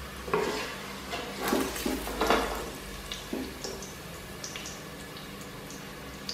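Wooden spatula scraping and knocking against the inside of a stainless-steel stockpot as browned fried onions are lifted out of the hot oil: a few strokes over the first three seconds, then light crackles from the oil.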